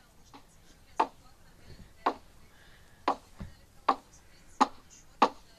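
Exhaust beats of the steam locomotive Duchess of Hamilton, six short, sharp chuffs that start about a second apart and quicken as the engine gets under way, heard as a recording played back through a tablet app.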